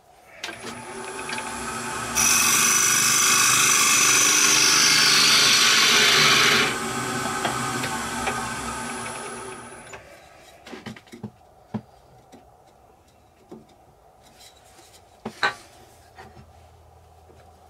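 A wood lathe runs up with a steady high whine. For about four seconds a turning tool cuts the spinning wood with a loud scraping hiss, and then the lathe winds down. Scattered light knocks and clicks of tool and wood handling follow.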